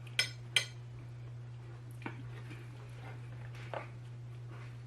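A few sharp clicks of cutlery and dishes: two close together at the start, then two fainter ones, over a steady low hum.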